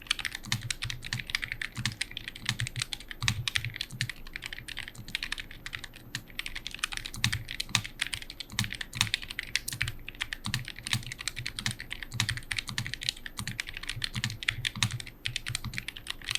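Typing on an Ajazz AK832 Pro low-profile mechanical keyboard with linear switches, an aluminium plate and gasket mount: a fast, continuous run of keystrokes.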